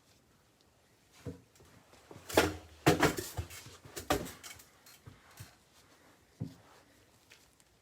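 Handling noise: a cluster of knocks, clicks and rustles, loudest between about two and four and a half seconds in, with a few lighter clicks after.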